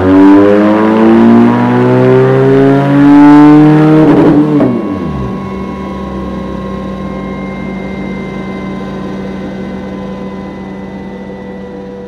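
Benelli TRK 502X's parallel-twin engine pulling hard through a Dominator aftermarket silencer in a dyno run, its pitch climbing steadily up the revs. About four and a half seconds in the throttle is shut and the engine sound drops away, leaving a quieter steady whine that slowly falls and fades as the wheel spins down.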